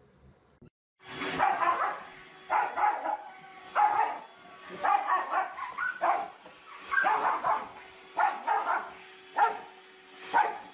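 A small dog barking repeatedly at a handheld vacuum cleaner, a bark or short volley about every second, over the vacuum motor's steady hum.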